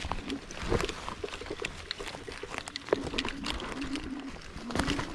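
Twigs, branches and dry forest litter crackling and snapping as someone pushes through woodland undergrowth, with irregular sharp clicks throughout. A short low hum comes and goes a few times in the second half.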